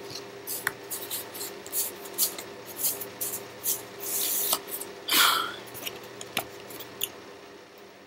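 Paper index cards being shuffled and handled: a string of short rustles and slides, with the longest and loudest rustles a little past halfway, over a faint steady hum.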